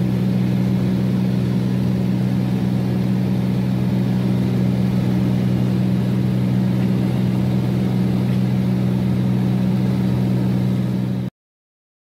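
Aircraft engine droning steadily during a flight, with no change in pitch; it cuts off suddenly near the end.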